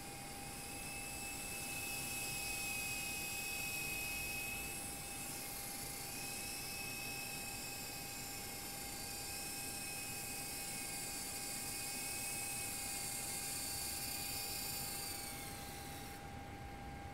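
Twister 400 V2 radio-controlled model helicopter flying: a high-pitched motor and rotor whine whose pitch wavers with the throttle. Near the end it winds down and stops as the helicopter sets down.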